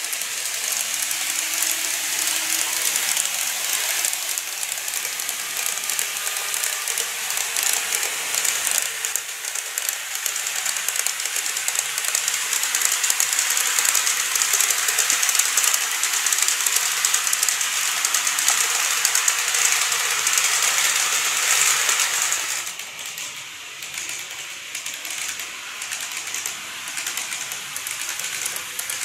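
N-gauge model train running on plastic track: a dense, steady clicking rattle of the small wheels over rail joints. About three-quarters of the way through it drops to a quieter rattle.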